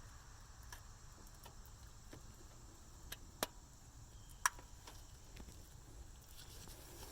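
Scattered light clicks and taps from small parts being handled during wiring work, with two sharper clicks about three and a half and four and a half seconds in.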